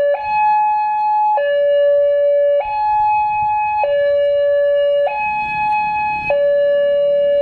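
Railway level-crossing warning alarm sounding a steady two-tone high-low signal, each tone held a little over a second. It signals that the crossing is closed for an approaching train.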